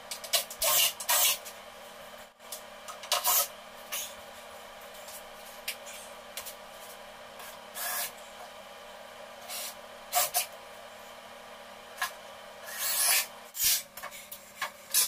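About ten short scraping and rubbing noises, scattered irregularly, from lumber and tools being handled on a concrete floor, the loudest a longer scrape near the end. A steady hum runs underneath.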